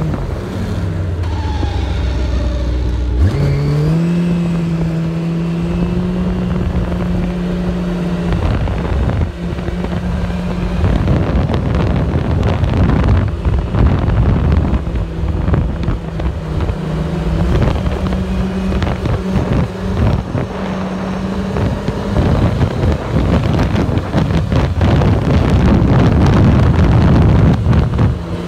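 Yamaha RX1 snowmobile engine and drive clutch running, with a steady whine and a rise in pitch about three seconds in, and wind noise on the microphone through much of it. The owner hears this as a loud clutch whining when slowing on engine braking, with a new belt fitted and no known cause.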